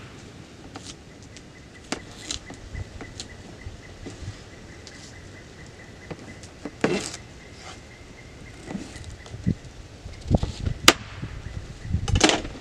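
Knife cutting a peeled root vegetable on a cutting board: scattered sharp knocks and taps of the blade against the board. The loudest comes about eleven seconds in, with a quick cluster of cuts near the end.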